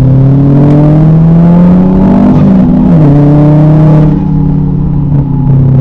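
VW Golf 5 GTI's turbocharged 2.0 four-cylinder engine under hard acceleration, its pitch climbing. About two and a half seconds in there is a short break and the pitch drops before climbing again, like a gear change. About four seconds in the throttle comes off and the engine settles to a steady lower drone.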